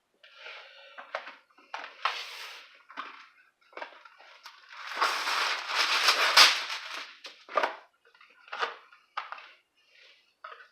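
Parchment paper and a plastic freezer bag being handled, crinkling and rustling in short bursts, with a longer, louder crinkle about halfway through.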